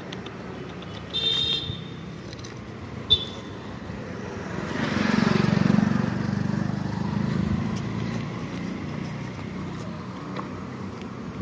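Street traffic: a motor vehicle passes close by, its engine rising and then fading over a few seconds. Two short high-pitched beeps sound about a second and three seconds in.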